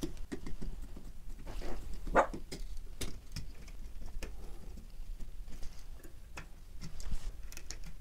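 Scattered light clicks and short scrapes of hand wiring at a dimmer switch: a screwdriver working the terminal screws and copper wires being bent into place.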